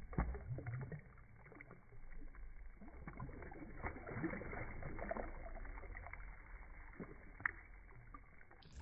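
Water splashing and slurping at the surface as a fish feeds, over a low rumble, with a sharp click near the end.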